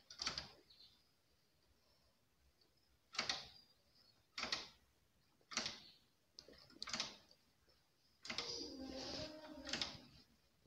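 Quiet handling sounds at a knitting machine's needle bed as a knitted piece is folded in two: about five short scratchy clicks a second or so apart, then a longer scrape with a creak near the end.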